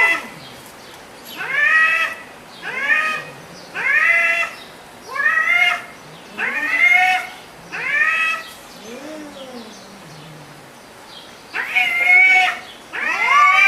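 A cat meowing over and over: about ten short, high meows, each rising and then falling in pitch, coming roughly one a second, with a pause of a couple of seconds past the middle where only a faint lower call is heard.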